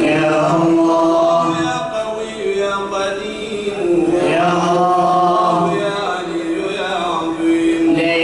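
Men's voices chanting an Islamic devotional chant, drawing out long held notes that step to a new pitch every second or two.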